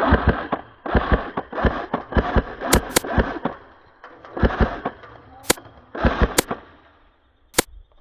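Airsoft guns firing in short rapid bursts, about eight bursts, with several single sharp cracks in between.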